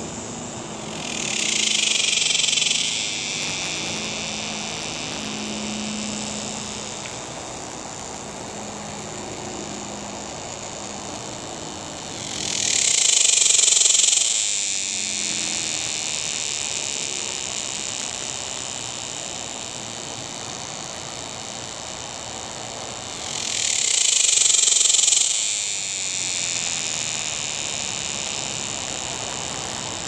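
A cicada calling in three loud buzzing calls, each about two seconds long and about eleven seconds apart, each swelling up and then dropping away. A steady high drone runs underneath them throughout.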